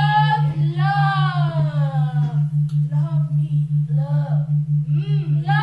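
Women's voices singing long, sliding wordless notes, shorter gliding phrases in the second half, over a steady low tone that pulses evenly about five times a second.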